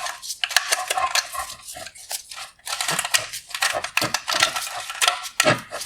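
Wire harness and its plastic connectors clicking, knocking and scraping against a plastic headlight bracket as they are pulled through its openings: a quick, irregular run of light clatter with a short pause about halfway.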